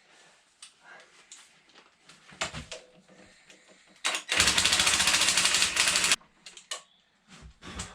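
A power tool running in one burst of about two seconds, a loud rapid mechanical rattle, with light clicks and knocks of metal parts being handled before and after it.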